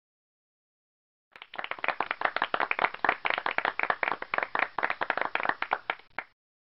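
Canned applause sound effect, a group clapping for about five seconds. It starts a little over a second in and cuts off abruptly, marking the reveal of the correct answer.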